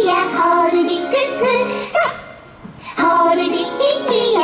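Children's hand-play song: a high, bright sung voice over cheerful accompaniment, in held-note phrases with a short break about two seconds in.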